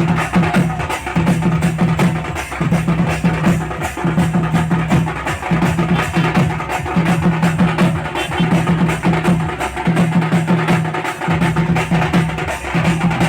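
Loud music driven by fast, dense drumming, with a low repeating bass phrase about once a second.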